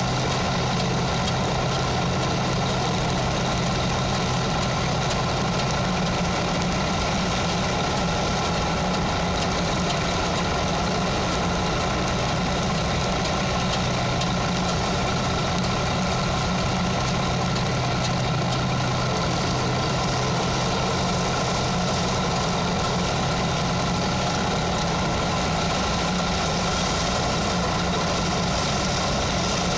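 Machinery running steadily with an even, engine-like hum that does not change.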